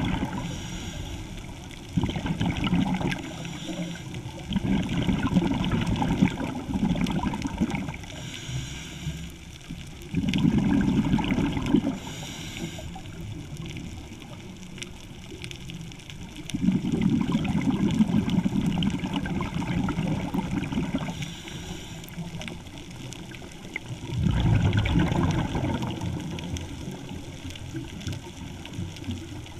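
Scuba diver breathing through a regulator underwater: about six bursts of exhaled bubbles, each lasting a couple of seconds, with a short hiss of inhalation between some of them.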